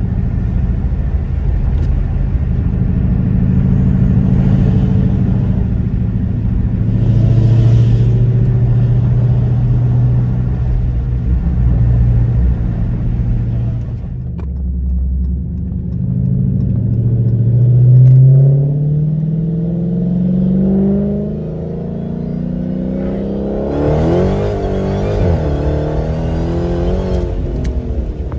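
Dodge Hellcat's supercharged 6.2-litre V8, running through gutted catalytic converters, pulling hard in track mode with its note climbing in pitch to its loudest about eighteen seconds in. It then eases off before another wavering burst of revving near the end.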